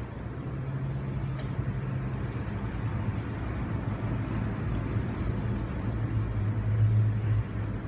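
Steady low rumble of background noise with a low hum, growing louder toward the end, and a few faint clicks.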